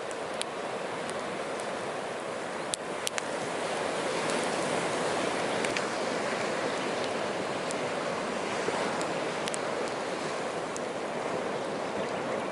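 Steady rush of surf washing on the shore, with a handful of sharp crackles and pops from the burning driftwood fire.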